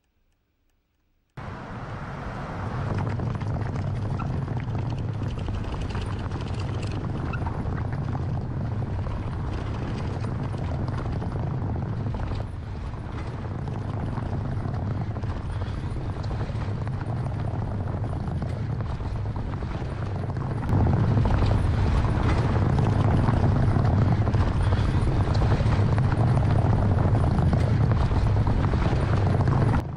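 Camouflaged Ford Bronco prototype driving over a cobblestone test track: a steady, heavy rumble from the tyres and suspension pounding over the stones, starting about a second and a half in. It gets louder about two-thirds of the way through, when the sound is picked up close to a wheel.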